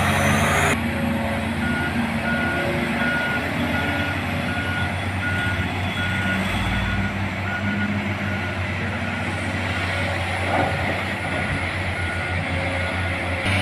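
Haul truck's reversing alarm beeping steadily, about two beeps a second, as a CAT 772G dump truck backs into loading position. Underneath is the steady running of the large diesel engines of the truck and the CAT 395 excavator.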